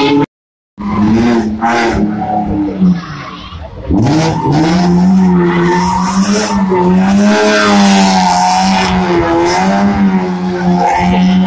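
Rally car sliding round a roundabout, its engine held at high revs with tyres squealing; the revs climb sharply about four seconds in. The sound cuts out completely for about half a second near the start.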